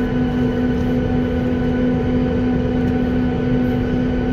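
Steady cabin noise inside a jet airliner on the ground: a constant hum over an even rumble.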